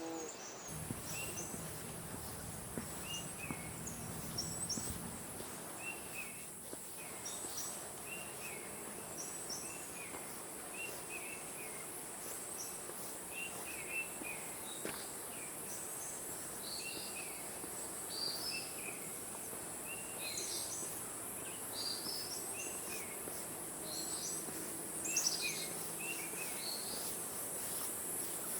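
Tropical forest ambience: a steady, high-pitched insect drone with birds chirping short, repeated calls over it.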